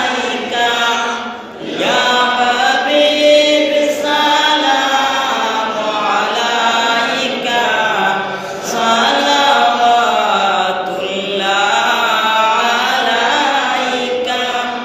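Milad sharif devotional chanting: a man's voice intoning long, drawn-out melodic phrases, with brief breaks between phrases.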